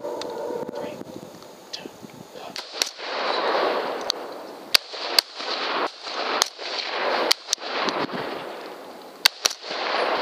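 Rifle shots: about eight sharp cracks at irregular intervals, some in quick pairs, over a rushing noise that swells and fades.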